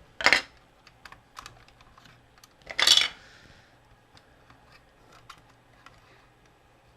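Small plastic parts of an action figure being handled: two louder scraping rattles, one just after the start and one about three seconds in, then scattered light clicks.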